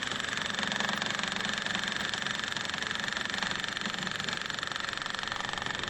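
A small engine or motor running steadily, with a fast, even chatter.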